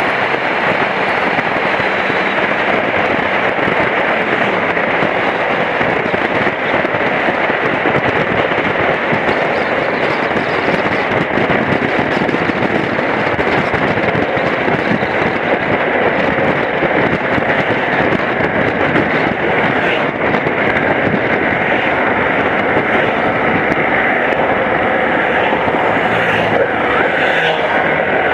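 Motorcycle ride at road speed: a steady rush of wind on the microphone over the running BMW F700GS's parallel-twin engine.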